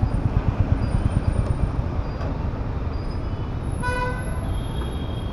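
Royal Enfield Classic 350's single-cylinder engine running under way, a steady low thudding, with a vehicle horn tooting once briefly about four seconds in.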